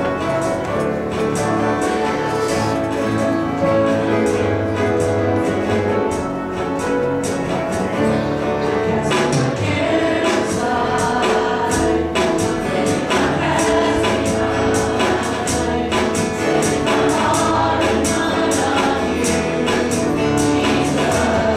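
Live church worship band playing an upbeat song, with singing, guitar and a steady beat that fills in about eight seconds in.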